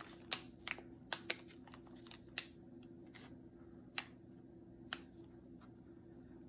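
Light, scattered clicks and plastic crinkles from a clear plastic packet of resin flower cabochons being handled and turned over, the resin pieces knocking together inside. About seven sharp taps, mostly in the first half, all faint.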